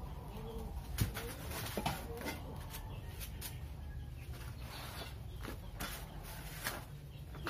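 Scattered knocks, clicks and rustles of cardboard and metal table panels being handled, the sharpest about a second in. A bird coos softly in the background near the start.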